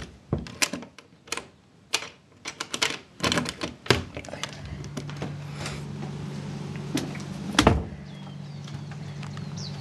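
Irregular footsteps, clicks and knocks of someone walking and opening a door, followed from about four seconds in by a steady low hum, one louder thump near the end, and a bird chirping at the very end.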